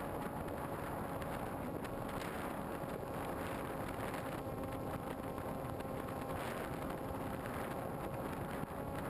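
Onboard microphone of an RC model plane in flight: the motor and propeller drone steadily, mixed with wind rushing over the microphone.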